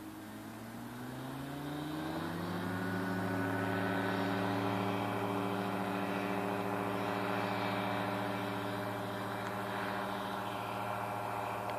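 The Rotax 582 two-stroke engine of a Fly Synthesis Storch ultralight rises in pitch over the first two to three seconds as it comes up to full power, then runs steadily at takeoff power during the takeoff roll.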